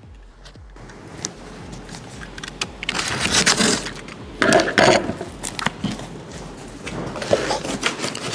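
Large cardboard shipping box being opened: packing tape cut and torn, and the cardboard flaps scraped and pulled open. There are scattered clicks and knocks, with the loudest tearing and scraping about three seconds in and again near five seconds.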